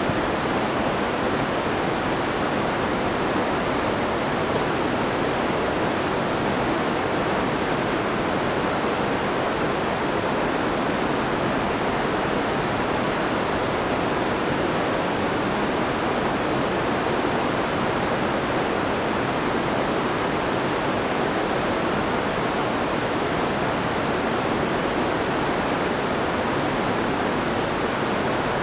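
Waterfall rushing: a steady, unbroken noise of falling water.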